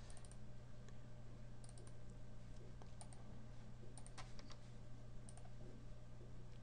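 Faint scattered clicks of computer keys, a few at a time about every second, over a steady low hum.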